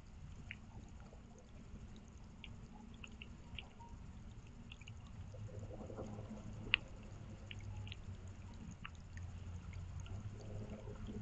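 Rain dripping: scattered drops ticking irregularly over a low, steady trickle of water, with one sharper, louder drop about two-thirds of the way through.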